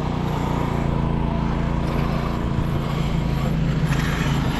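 Electric RC car with a brushless Max5 G2 880KV motor running, a steady motor drone with a fairly even pitch.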